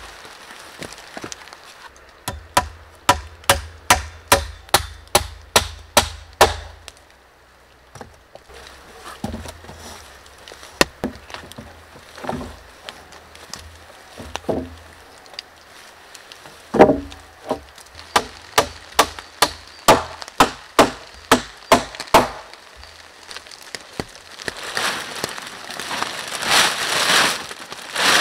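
A hammer driving nails into wooden boards, in runs of steady, sharp blows about two a second. Near the end comes a loud rustling of a large plastic sheet being handled.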